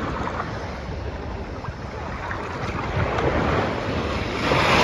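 Small sea waves lapping and washing over a sandy shoreline in shallow water, with wind rumbling on the microphone; a wave washes in louder near the end.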